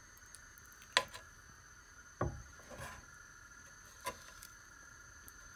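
Metal spoon clinking against a stainless steel saucepan about four times, the first loudest, as it pushes butter, brown sugar and golden syrup around in the pan.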